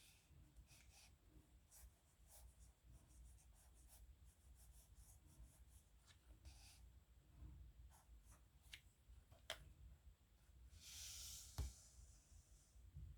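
Faint scratching of a pen nib on paper in many short strokes. Near the end comes a longer, louder stroke followed by a sharp tick.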